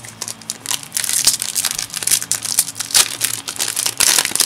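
Foil booster-pack wrapper of a Yu-Gi-Oh card pack crinkling and crackling as it is handled and torn open by hand. The crackles come thick and fast from about half a second in.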